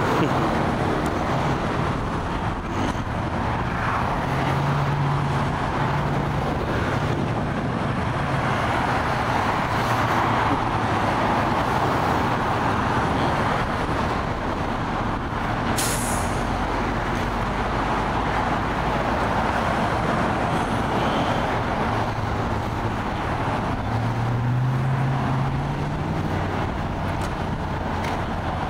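Steady road traffic noise with heavy truck engines running, swelling twice as vehicles pass. A short sharp air-brake hiss comes about sixteen seconds in.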